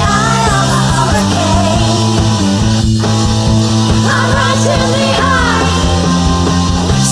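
Electronic rock music with steady held bass notes and a wavering lead melody above them, without sung words.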